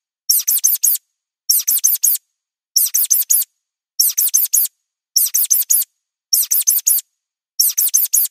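Mouse squeak sound effect: high-pitched squeaks in quick runs of four, each squeak falling in pitch, the runs repeating about every second and a quarter with silence between.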